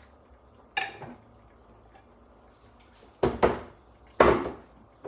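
Kitchenware clattering: a short ringing clink about a second in, then three louder knocks near the end.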